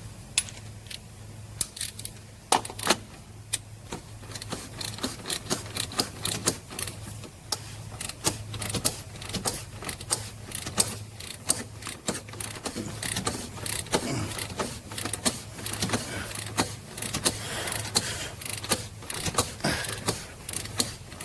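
Half-inch ratchet clicking in short, uneven strokes, sparse at first and then faster and denser from about eight seconds in, as it tightens a fuel filter housing cap.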